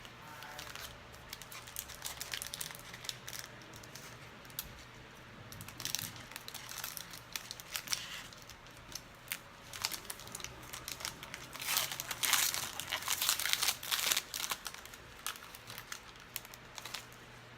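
A trading-card pack wrapper crinkling and being torn open, with irregular crackles that are densest about twelve to fourteen seconds in.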